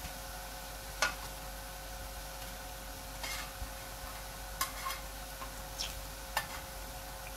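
Gram-flour fritters sizzling in shallow oil on a flat tawa griddle, with metal tongs clicking and scraping against the griddle several times as they are turned.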